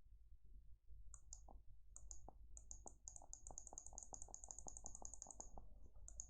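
Faint, rapid clicking of a computer mouse button as an app button wired to Android's built-in click sound effect is pressed over and over, several clicks a second. Each press is heard as a double click, the mouse's own click plus the system sound effect.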